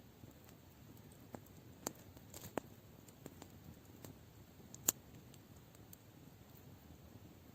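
Wood campfire crackling: a few sharp, irregular pops over a faint, steady background noise, the loudest pop about five seconds in.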